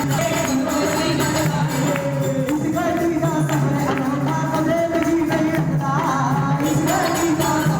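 Hindi devotional song (bhajan) playing: a singing voice over continuous accompaniment with jingly percussion.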